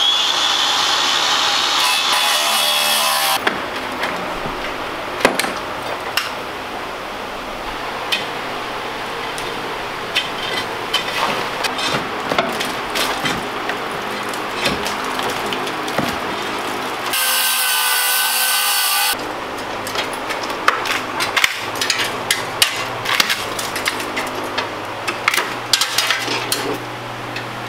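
Plaster and wooden framing being torn out around a vault-door frame. A power saw cuts in two loud bursts, one at the start lasting about three seconds and one about two-thirds through lasting about two. Between them are irregular scraping, prying and knocking of plaster and wood breaking loose, with the knocks coming thick and fast near the end.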